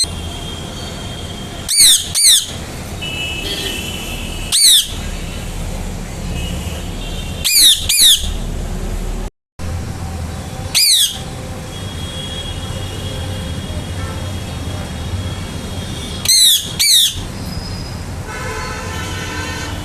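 Rose-ringed (ringneck) parakeet giving loud, sharp screeching calls, each sweeping down in pitch. There are eight calls in all, mostly in quick pairs and spaced a few seconds apart, over a steady low hum.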